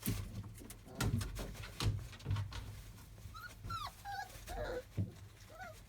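Month-old Labrador retriever puppies at play: several knocks and thumps, then short high whimpers and squeaks from about three seconds in.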